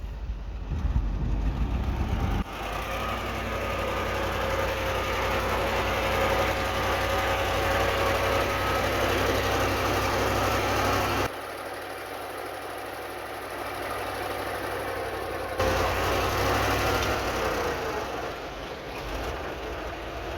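Diesel engines of heavy earthmoving machinery running, with a strong low rumble and engine tones that drift up and down. The sound changes abruptly in level and tone three times.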